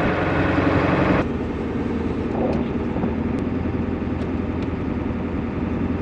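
Ford F-350 Power Stroke diesel truck engine running steadily at low speed. The sound changes abruptly about a second in.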